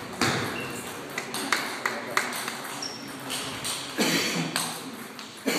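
Table tennis ball clicking: a few light bounces about a third of a second apart, then the sharper hits of a serve and rally, ball on bat and table.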